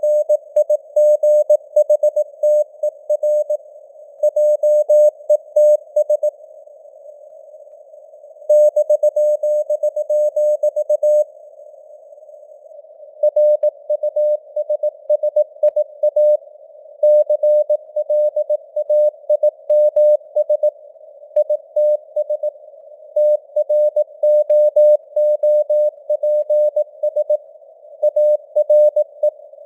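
Morse code (CW) sent at 18 words per minute as a keyed, steady mid-pitched tone in dots and dashes, over a narrow band of simulated radio hiss with fading signal strength (QSB). The keying stops twice for a second or two in the first half.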